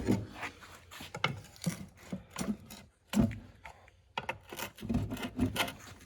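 Pry bars working between the two halves of a Polaris Ranger 570 transmission case: irregular metal clicks, knocks and short scrapes as the case is levered apart.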